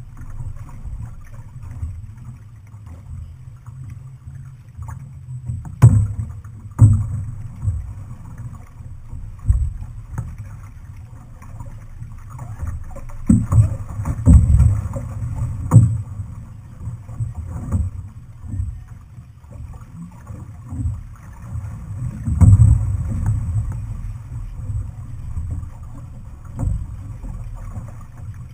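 Outrigger canoe under paddle: a steady low rumble of wind on the microphone and water splashing from the paddle strokes, with a few sharp knocks, the loudest about six seconds in and several more a few seconds before the middle.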